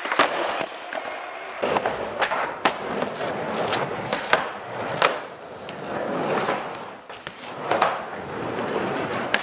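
Skateboard wheels rolling over wooden ramps and floor, with several sharp clacks of the board hitting the surface.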